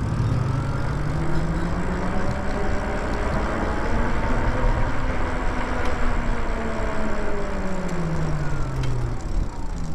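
Lyric Graffiti electric bike's motor whining as it speeds up, the pitch rising for about the first half, then falling steadily over the last three seconds or so as the bike slows under regen braking, over a steady rush of wind and road noise.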